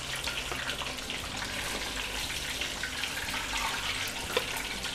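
Hot oil sizzling steadily with fine crackling as pieces of cooked goat meat fry briefly. One light knock sounds about four and a half seconds in.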